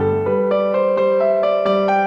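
Instrumental Christmas music on piano or electric piano, a melody of single notes over a held low note.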